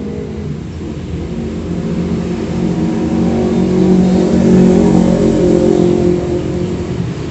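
A vehicle engine running, swelling to its loudest about halfway through and then easing off again.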